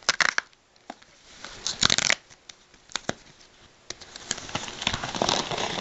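Cardboard packaging being opened by hand after a pull tab is pulled: scattered sharp clicks and short scrapes, then steadier rustling of the packaging over the last couple of seconds.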